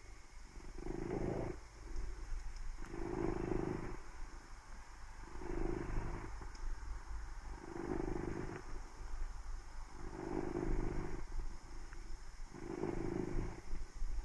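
A cat's purring snore: a low rumble that swells on each breath, six times, about every two and a half seconds.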